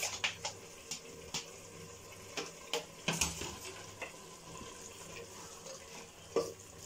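Vegetables frying faintly in oil in a pressure cooker, with scattered clicks and knocks as tomato pieces are tipped in and a wooden spatula stirs the pot. The sharpest knock comes about three seconds in.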